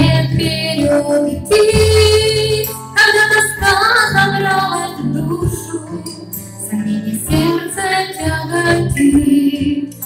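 A woman singing a Christian hymn about prayer into a microphone over instrumental accompaniment, holding long, sustained notes.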